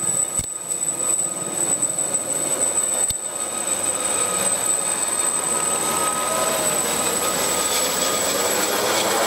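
Army Air Corps Gazelle helicopter climbing away after take-off. Its Turbomeca Astazou turboshaft and rotors give a steady, high-pitched whine over a rushing engine and rotor noise, which grows slightly louder in the second half.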